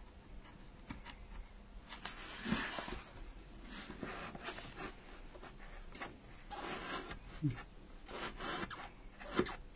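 Irregular scratchy rubbing strokes of a small tool pushing felt edges down into the grooves of a polystyrene foam pumpkin, with a couple of sharper ticks.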